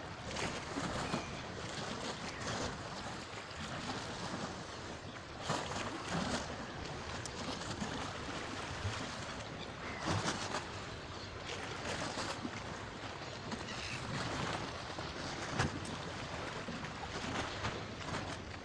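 Sea water lapping and splashing in irregular surges over a steady rush of noise.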